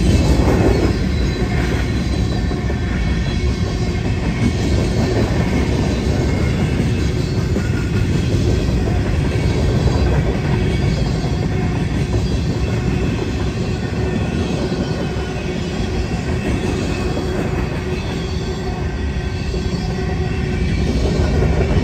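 Freight cars rolling past close by: a steady, loud rumble and clatter of steel wheels on the rails, with a faint thin squeal from the wheels running on top.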